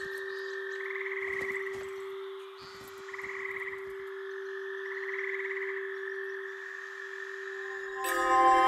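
Eerie forest ambience sound design: a steady low drone under a high, trilling creature-like call that comes back about every two seconds, with scattered faint clicks. Near the end, a louder swell of bright ringing, chime-like tones comes in.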